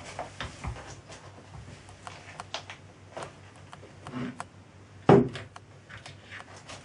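Small metal parts clicking and clinking as nuts and clamps are handled and fitted onto the studs holding a cast flywheel to a lathe faceplate, with one louder knock about five seconds in.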